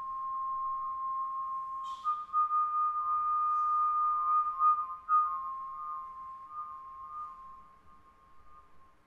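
Sustained high, nearly pure tones of a live sound-art score. The tone holds on one pitch, steps slightly up about two seconds in with a brief hissing burst, drops back down about five seconds in, and fades out near the end.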